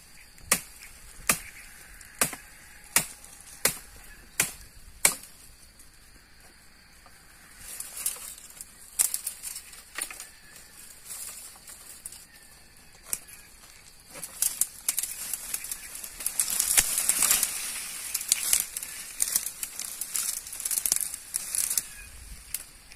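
A blade chopping wood with sharp, evenly spaced strokes, about seven in the first five seconds and a few more after, as a fallen acacia is cleared off a wild bee nest. From about fourteen seconds in, a long crackling rustle of dry branches and leaves being dragged away.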